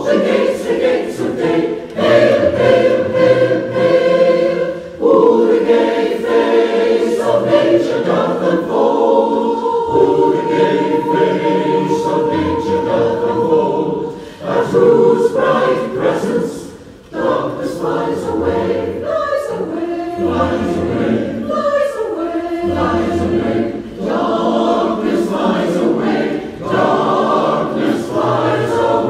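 Choir singing in parts, sustained phrases with a short break about 17 seconds in.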